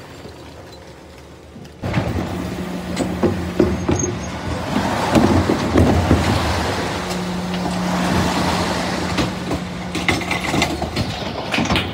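DAF CF refuse truck running at the kerb, with a steady engine hum that starts suddenly about two seconds in. Rattling and clanks from the rear bin-lift end come around the middle.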